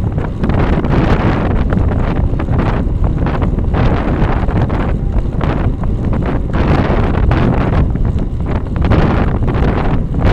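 Wind buffeting the microphone of a Cycliq bike camera on a road bike moving at about 32–35 km/h: a loud, steady rush that swells and dips every second or so.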